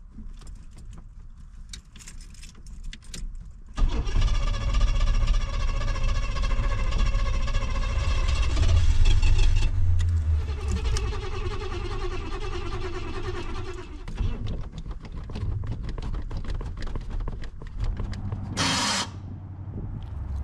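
Starter motor cranking a 1986 Chevrolet Monte Carlo's engine, which does not fire. After a few faint clicks, a long stretch of cranking with a high whine starts about four seconds in, then gives way to shorter, uneven bursts of cranking. This is the cranking that killed the starter. A short sharp burst of noise comes near the end.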